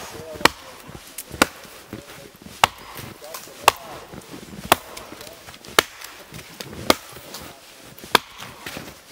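Axe chopping into a fallen tree trunk: eight sharp strikes, about one a second.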